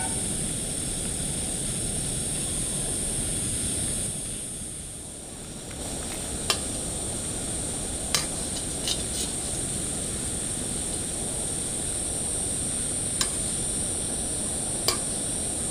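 A steady rushing noise, with a handful of sharp metallic clinks as a wire frying strainer stirs bijli bomb firecrackers in a steel kadhai over a gas burner.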